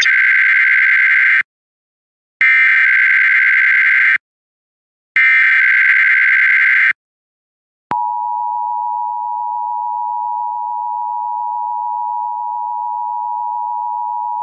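Emergency Alert System SAME header: three identical bursts of buzzing digital data tones, each about a second and a half long and about a second apart. About 8 seconds in, the steady two-tone EAS attention signal (853 and 960 Hz) begins and holds, announcing a Required Monthly Test.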